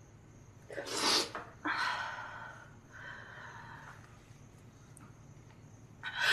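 A woman sniffling and catching her breath while crying: a sharp sniff about a second in, a longer shaky breath after it, and another sniff near the end.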